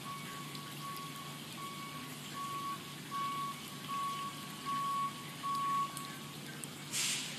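A vehicle's reversing alarm beeping with one steady tone, about one and a half beeps a second, growing louder and stopping about six seconds in. A brief hiss near the end.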